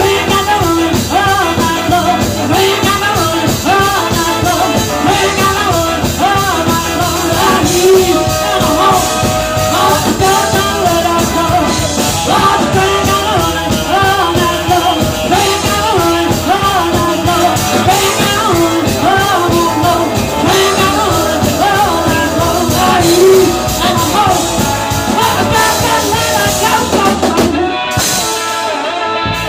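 Live rock and roll band: a woman singing over electric guitar, electric bass and a drum kit, loud and driving, the full band thinning out near the end.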